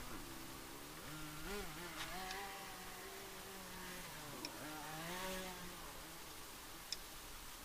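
Faint motor vehicle engine running, its pitch rising and falling as it revs, dying away about six seconds in. A few light ticks sound over it.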